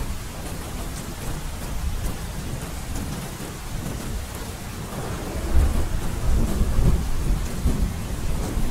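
Steady rain falling, with a low roll of thunder that swells about halfway through and rumbles on.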